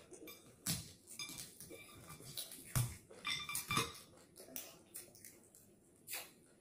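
Close-up eating sounds: bites and chewing of fried fish with mouth smacking, heard as a scatter of short sharp clicks and crunches. The loudest come about three and four seconds in.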